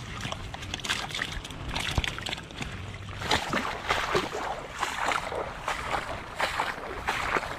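Thin plastic bag crinkling as a caught fish is put into it, then, about three seconds in, louder irregular rustling and swishing of footsteps pushing through tall grass and water plants on marshy ground.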